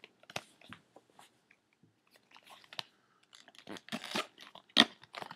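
A small black cardboard watch box being handled and opened: scattered rustles, scrapes and light taps of card against card and fingers, with one sharper tap near the end.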